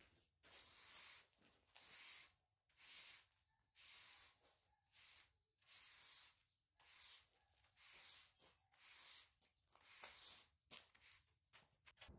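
Push broom sweeping dust and grit across a concrete slab: about ten scratchy, hissing strokes, roughly one a second, then a few short quick flicks near the end.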